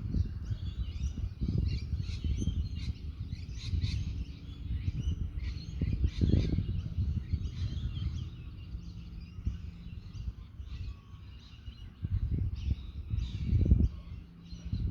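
Birds chirping continuously over gusts of wind rumbling on the microphone, with the wind swelling about halfway through and again near the end.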